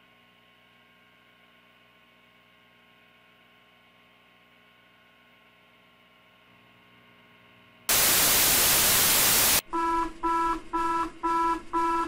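Simulated emergency alert broadcast: a faint electrical hum with steady tones, then about eight seconds in a sudden burst of loud static lasting under two seconds, followed by a run of short electronic alert beeps, about two and a half a second, each a chord of tones. It is the start of a missing-person alert transmission.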